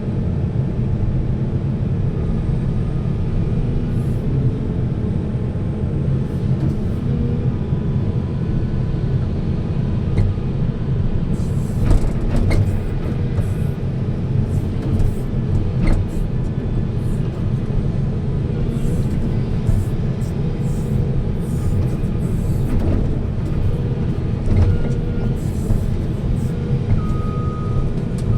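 Heavy diesel machinery running steadily as an excavator loads a dump truck, with scattered knocks and clanks from about the middle onward. A reversing beeper starts pulsing near the end.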